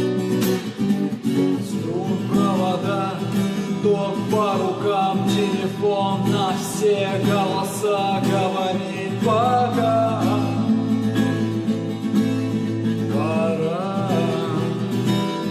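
Acoustic guitar strummed steadily, with a wordless melody line rising and falling over the chords from about two seconds in.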